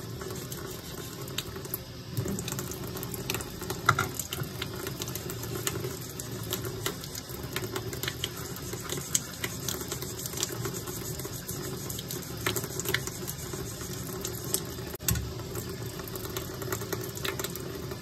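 320-grit wet sandpaper rubbing over a knife's handle and pins: a steady wet scratching with many small clicks.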